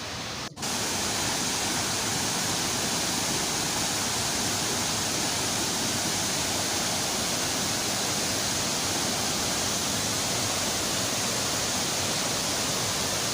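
Steady rushing of a waterfall and river, an even hiss. It drops out briefly about half a second in, then comes back a little louder and holds level.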